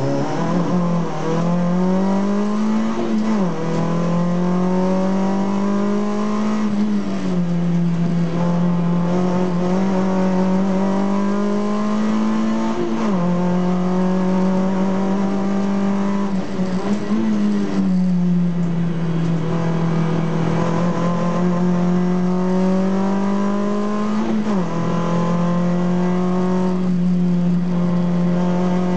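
Citroën Saxo Group A race car's 1.6-litre four-cylinder engine heard from inside the cabin at full throttle, its note climbing through the revs and dropping sharply at each gear change, about five times.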